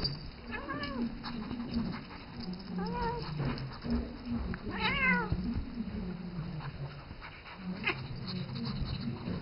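Siamese cat meowing three times, each call rising and then falling in pitch, amid scuffling as it wrestles with a ferret on an upholstered chair.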